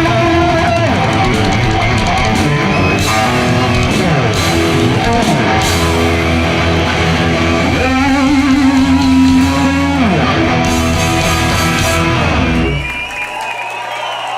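A heavy metal band plays live with electric guitars and drums, the lead guitar sliding up and down in pitch. Near the end the band stops on its final chord.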